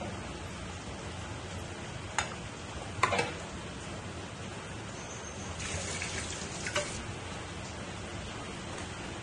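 Lemongrass broth simmering in a wok, a steady bubbling hiss, with a few light clicks and knocks around two and three seconds in and again a little past halfway.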